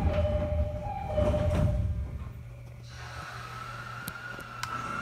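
209-series train's door chime, a descending two-note chime repeated about once a second, over low rumble and thuds from the sliding doors. About three seconds in it fades to a faint steady whine.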